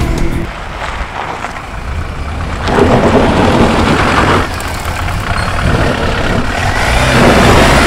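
Mahindra Thar driving over rough off-road terrain, its engine running under tyre and body rumble, louder for a stretch about three seconds in and building again near the end.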